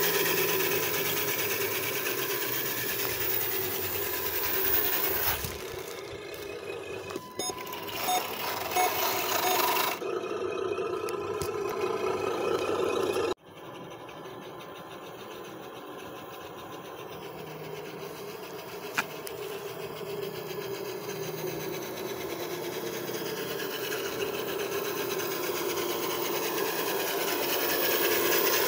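Radio-controlled model Mercedes-Benz Atego truck driving on asphalt, a steady mechanical running sound. The sound drops sharply about 13 seconds in and carries on quieter, growing louder again near the end.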